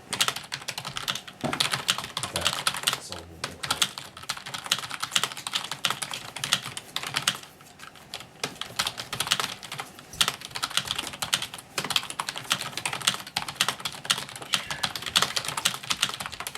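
CM Storm membrane keyboard being typed on fast, a dense run of key clacks that breaks off briefly about a second in, near four seconds, around eight seconds and near twelve seconds.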